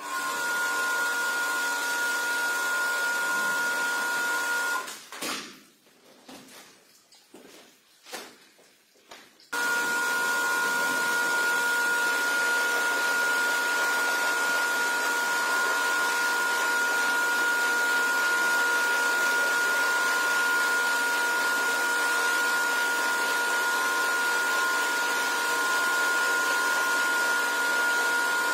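Motor of a carpet-cleaning machine running steadily with a high whine over an airy hiss. It cuts out about five seconds in, leaving a few faint knocks, and starts again about nine seconds in.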